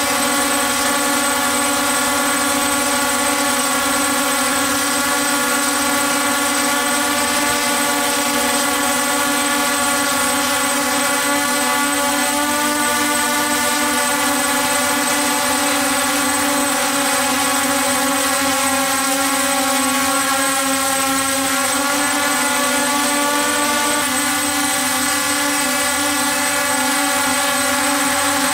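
DJI F550 hexacopter's six electric motors and propellers droning steadily in flight, heard from the camera it carries. The pitch of the drone shifts slightly several times as the motors change speed, over a constant thin high whine.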